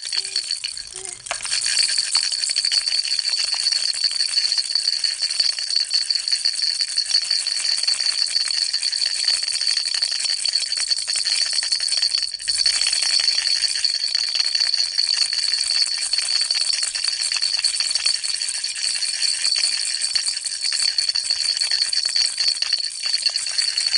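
Baby rattle shaken continuously in a fast, steady rattle with a bright ringing edge, dropping out briefly about a second in and again about halfway through.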